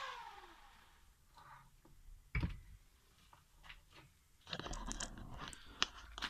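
Black & Decker DN750 electric hand planer's motor spinning down after being switched off, its whine falling in pitch and fading out within about half a second; the motor runs smoothly, with no rough running. Then scattered clicks, a sharp knock about two and a half seconds in, and a stretch of rustling near the end.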